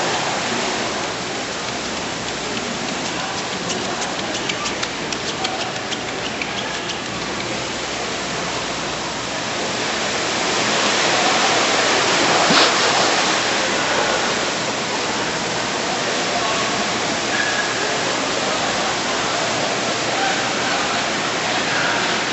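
Steady rushing water, like a waterfall or a tank's water flow, that swells louder around the middle with one sharp knock.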